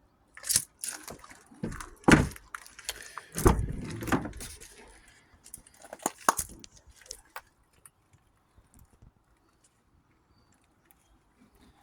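A run of clicks, rattles and knocks, with a heavy thump about three and a half seconds in.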